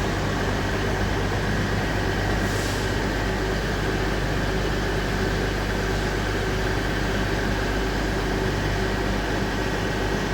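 Diesel railway engine running steadily: an even, unchanging hum with a low drone.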